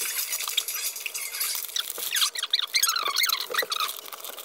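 Paper and plastic packaging rustling and crinkling as items are handled and packed into kraft bubble mailers, with a run of short high squeaks in the middle.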